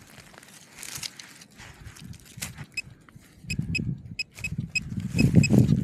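A hand scrapes and crumbles loose soil in a dig hole. From about halfway, a metal detector gives short high beeps several times, signalling buried metal: here a spent shotgun shell base.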